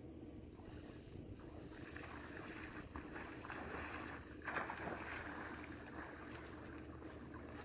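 Water splashing and sloshing as a person wades into a flowing river, louder around four and a half seconds in, over a low rumble of wind on the microphone.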